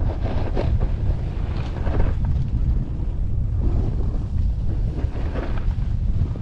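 Wind buffeting the microphone of a helmet camera during a snowboard run, a constant low rumble. Over it, the snowboard's edge scrapes and hisses on the packed snow every second or two through the turns.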